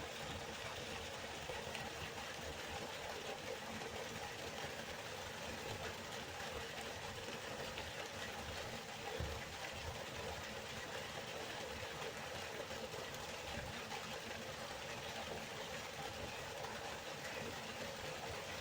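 Steady rushing of river water, with a brief low thump a little under halfway through.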